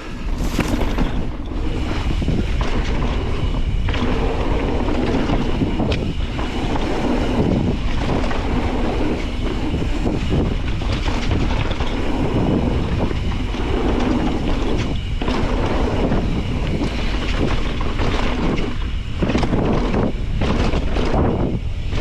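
YT Jeffsy Uncaged 8 full-suspension mountain bike riding down a rocky downhill trail, heard from an on-board action camera: wind buffeting the microphone, tyres rumbling over dirt and rock, and the chain and frame clattering with frequent sharp knocks from the hits.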